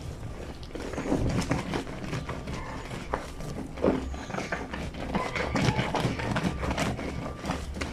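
Wet fleece sheets being scrubbed and slapped by hand on a granite washing sink, a continuous run of irregular wet rubs, squelches and soft thuds.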